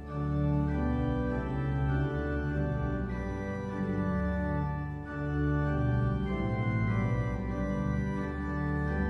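Organ playing a postlude of sustained chords that change about once a second, over a strong bass line.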